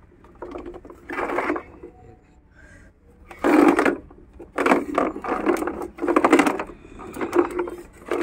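Plastic toy jeep pushed across a tiled floor, its plastic wheels and gearing clattering in several short bursts of rapid clicks.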